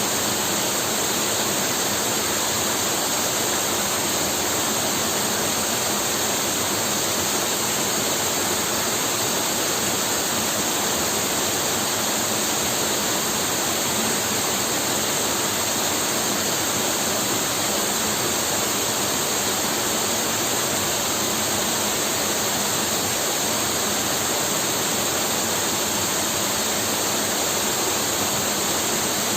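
Waterfall rushing steadily, an even unbroken roar of falling water.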